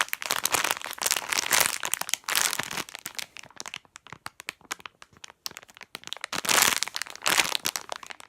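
Crinkly plastic packaging of a squishy toy crackling as the toy is squeezed through it, in two bouts of handling with quieter crackles between.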